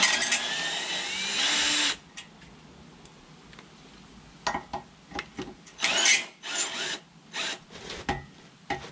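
Ryobi cordless drill with an 8mm socket bit, running for about two seconds with its whine rising in pitch, then in several shorter bursts in the second half, backing screws out of a caravan's underside.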